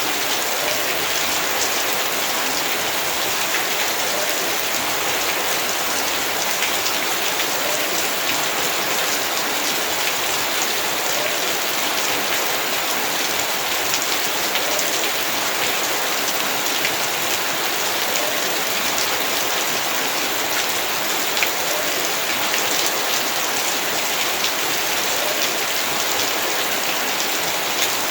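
Heavy rain falling steadily, a dense even hiss with countless small drop ticks.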